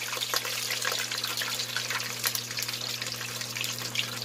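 Whole pork leg deep-frying uncovered in a wok of hot oil: a steady sizzle with dense crackling and spitting as the skin crisps. A steady low hum runs underneath.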